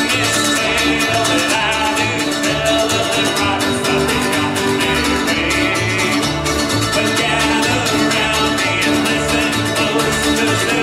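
Bluegrass band playing an instrumental passage: two fiddles bowing the melody over mandolin, guitars, banjo and upright bass, with the bass keeping a steady beat.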